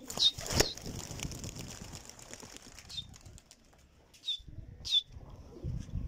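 A flock of domestic pigeons flapping their wings as they take off and fly, with several sharp wing claps. The loudest claps come within the first second and about five seconds in.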